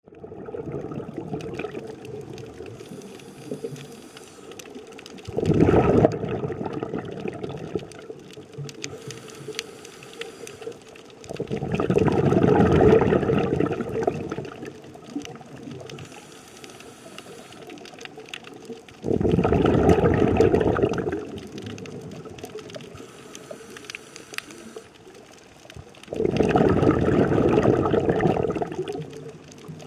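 A scuba diver's exhaled air bubbling out of the regulator, heard underwater. There are four loud bursts of bubbles, roughly every seven seconds, with quieter bubbling and a faint hiss between them.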